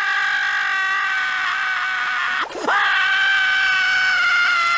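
A woman's long, high-pitched scream held at one steady pitch. It breaks off about halfway, then comes back with a quick upward swoop into a second held scream.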